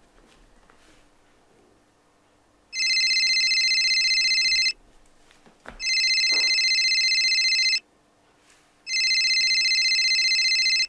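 Telephone ringing three times, each ring about two seconds of a fast-warbling electronic trill, with about a second's pause between rings. A short click comes just before the second ring.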